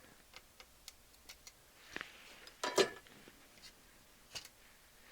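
Small tools clicking and tapping on a workbench while a transistor is worked out of a circuit board: a scatter of light ticks, with a louder metallic clink that rings briefly a little under three seconds in.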